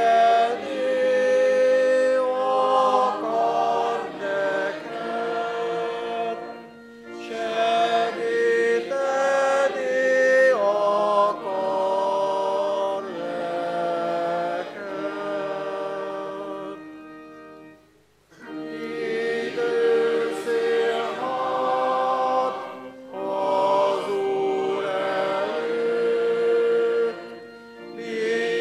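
Church congregation singing a hymn together in long held notes, with short breaks between lines and a brief near-silent pause about two-thirds through.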